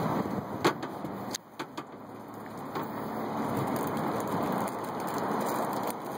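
Wind rushing over a phone's microphone, dipping sharply about a second and a half in, with a few sharp clicks and knocks in the first three seconds.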